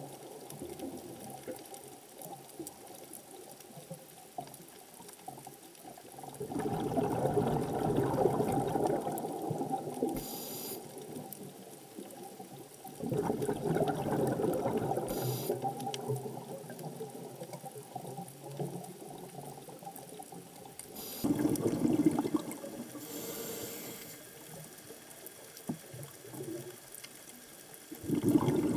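Water heard underwater: a steady low wash that swells into rushes of bubbling about every seven seconds, with a few short hisses between them.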